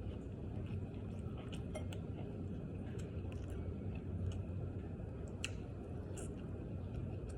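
A person chewing and eating, with scattered small mouth clicks and smacks over a steady low hum.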